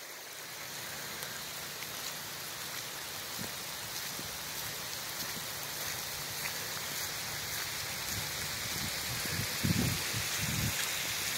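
Steady rain falling, with scattered drops pattering and growing slightly louder, and a few brief low thuds near the end.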